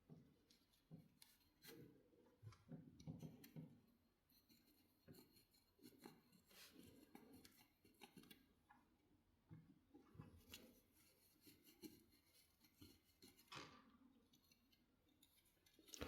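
Faint handling sounds of kettle parts being cleaned: scattered light clicks, taps and short rubbing noises.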